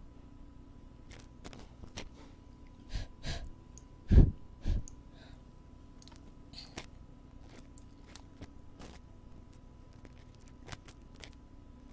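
Close-up ASMR ear-cleaning and handling sounds against a binaural microphone's ears: scattered light scratches and clicks, with a few heavy low thumps between about three and five seconds in, the loudest just past four seconds. A faint steady hum runs underneath.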